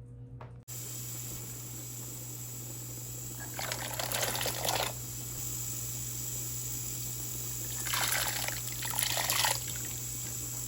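Water running or being poured in a kitchen, starting abruptly and running steadily, with two louder spells of pouring about four seconds in and again about eight seconds in.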